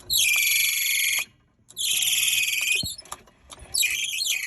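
Club Car Villager utility vehicle squealing from its drive in three loud, high-pitched squeals of about a second each, with short pauses between. The owner suspects the worn, loose drive belts.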